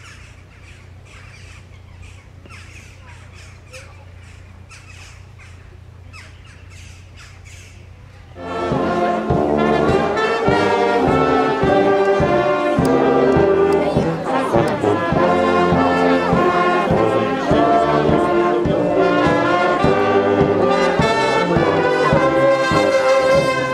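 Brass band of trumpets, trombones and tubas playing, starting loudly about eight seconds in after a quieter stretch.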